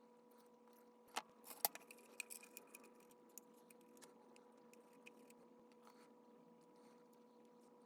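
A few sharp clicks and a short, light clatter of small hard objects, over a steady faint hum.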